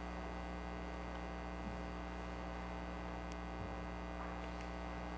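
Steady electrical mains hum in the audio feed, with a few faint ticks.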